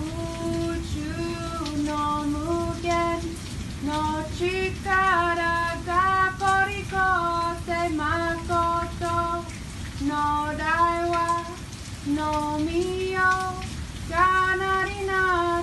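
A high voice singing a slow melody in held notes that slide from one pitch to the next, in short phrases with brief gaps, over a steady background hiss.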